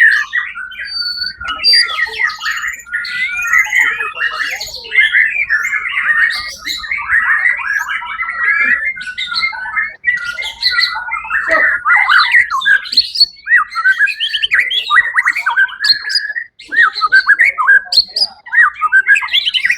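White-rumped shama (murai batu) singing a long, loud run of rapid, varied phrases and whistles, with brief breaks about halfway through and again near the end.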